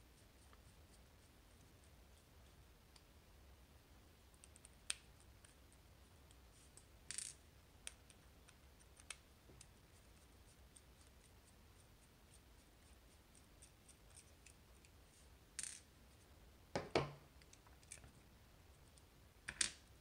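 Near silence broken by a few faint, scattered metal clicks and taps as a precision screwdriver takes the Torx screws out of the back of a lock cylinder; the sharpest knock comes about 17 seconds in.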